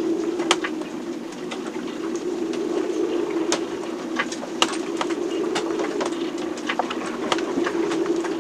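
Storm heard inside a sailboat's cabin: a steady, wavering low moan of wind in the rigging, with many sharp, irregular ticks and taps.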